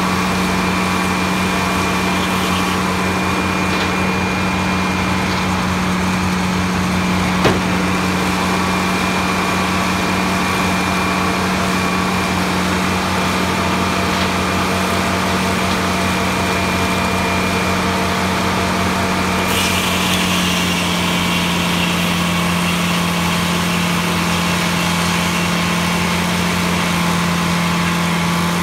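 Circular sawmill running with a steady engine hum while its large blade saws a big log, thought to be yew. There is a single sharp click about seven seconds in, and a brighter hiss joins about two-thirds of the way through.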